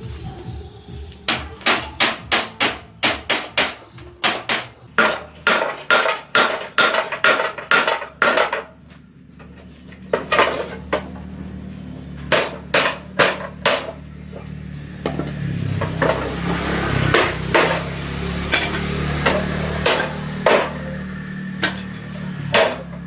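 Hammer striking metal in a fast run of blows, several a second, for about eight seconds. A steady low hum then comes in under further, more spaced strikes.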